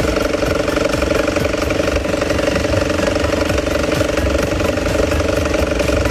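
BMW B48 four-cylinder turbo petrol engine running with a rapid, regular "da-da-da-da" knock. The knock is the sign of a failed crankshaft pulley, not the tensioner pulley that had already been replaced.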